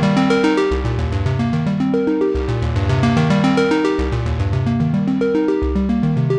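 Modal Cobalt 5S synthesizer playing an arpeggiated patch: a fast, even run of short notes over a sustained bass note that changes about every second and a half.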